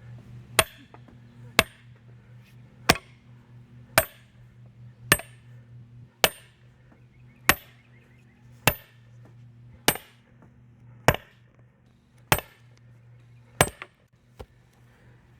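A 5-pound sledgehammer striking a duckbill wedged into a padlock's shackle: twelve sharp metallic strikes, about one every 1.2 seconds, each with a brief high ring. The blows are forcing the padlock open by destructive entry.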